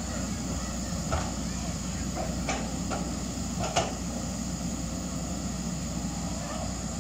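Hydraulic excavators' diesel engines running steadily as they dig in mud, with four sharp knocks from the machines in the first four seconds, the loudest just before four seconds in.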